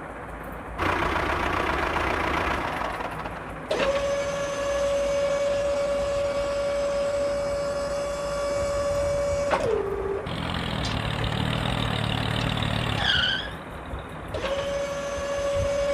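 Small electric motor running with a steady whine, winding down with a falling pitch just before ten seconds in and starting up again about fourteen seconds in, with rougher, noisier running in between.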